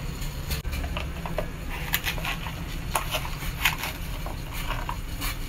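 Raw salmon head being handled, with a scatter of short wet clicks and knocks over a low steady hum; the knocks are thickest about two to four seconds in.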